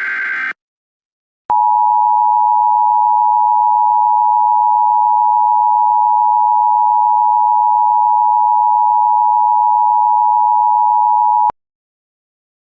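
The tail of an Emergency Alert System SAME header data burst, then about a second of silence and the EAS attention signal. The attention signal is a steady two-tone beep at 853 and 960 Hz, held for about ten seconds and cutting off sharply.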